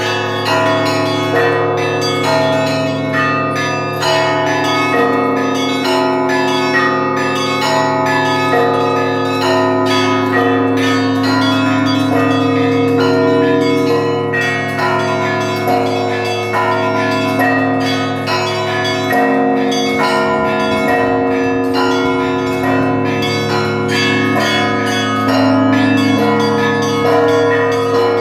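Russian church bell ringing (zvon): quick, dense strikes on the smaller bells layered over the steady, sustained hum of the large bells.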